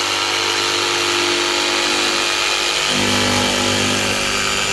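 Kobalt 24V MAX cordless jigsaw cutting through a plywood panel along a pencil line, running steadily. Its low hum changes pitch about three seconds in.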